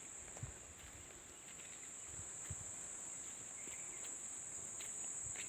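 Insects giving a steady, unbroken high-pitched drone, with a few faint ticks.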